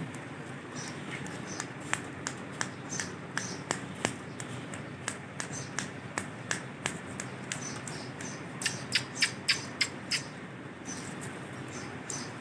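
Male Indian ringneck parakeet making short sharp clicking sounds, scattered irregularly, with a quick run of five or six louder clicks about nine seconds in.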